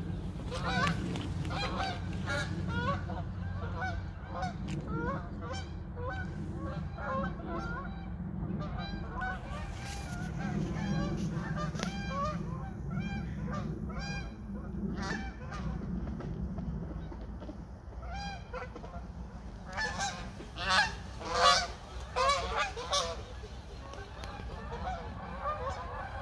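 A flock of Canada geese flying over, honking continually, with a louder run of honks about three-quarters of the way through.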